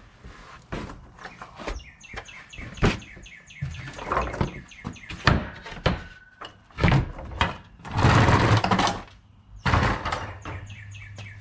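Knocks and clatter of a wrench and a metal transmission drain pan being handled, with a longer scraping noise about eight seconds in. Birds chirp repeatedly in the background.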